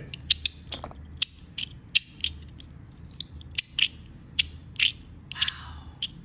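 Handheld metal fidget toy being worked by hand: a string of sharp metallic clicks at an irregular pace, about two or three a second, with a brief sliding scrape about five seconds in.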